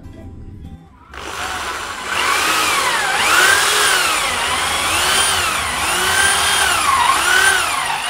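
Handheld electric drill with a large bit boring into the wooden body of a phin; the motor starts about a second in and its whine rises and falls in pitch roughly once a second as the bit bites into the wood.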